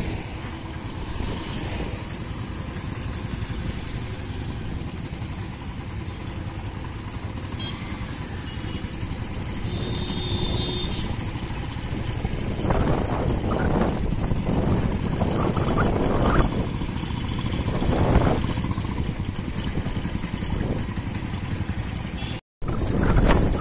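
Motorcycle running on the move through town traffic: a steady rumble of engine and wind noise that swells louder a few times in the second half, then cuts out for a moment near the end.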